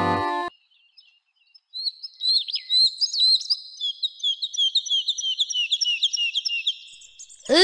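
Birds chirping in quick, high twitters as a cartoon's outdoor ambience, after a snatch of children's music stops about half a second in and a second of quiet. Right at the end a loud pitched sound effect begins.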